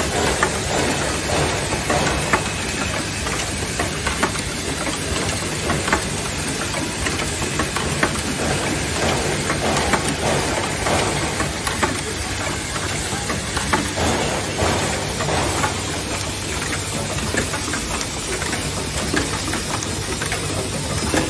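Automatic soft-close hinge assembly machine running: a steady mechanical hum and hiss of compressed air, broken by frequent irregular clacks as its pneumatic cylinders stroke and the parts index.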